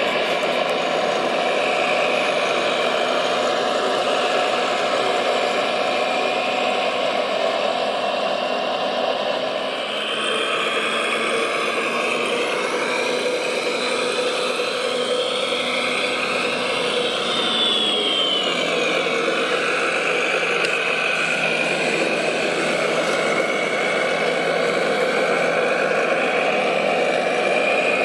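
Radio-controlled model construction trucks running: a steady engine-like drone, with a higher motor whine that rises and falls in pitch a few times about halfway through.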